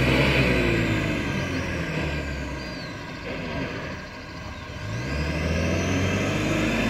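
UAZ off-roader's engine working hard in a deep mud ford. The revs sag and fade over the first few seconds, then climb again about five seconds in as it pushes on.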